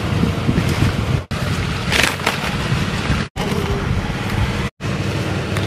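Wind buffeting an outdoor microphone: a loud, steady rumbling noise with a brief louder hiss about two seconds in, broken by three short, abrupt dropouts.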